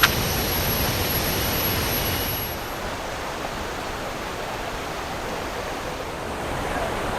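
Cicadas droning in a steady high whine that cuts off about two and a half seconds in, over a constant rush of water from the waterfall's cascades and pools.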